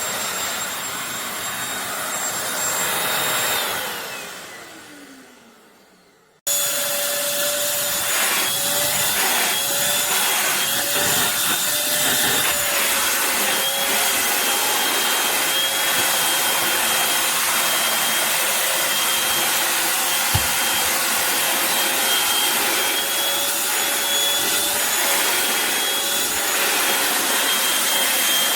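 Eureka corded stick vacuum cleaner's motor running with a steady whine. A few seconds in it winds down, falling in pitch almost to silence. It then starts again abruptly at full speed and runs on steadily.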